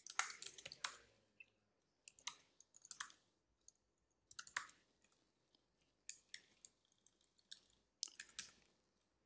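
Faint keystrokes on a computer keyboard, typed in short bursts of a few clicks with pauses between.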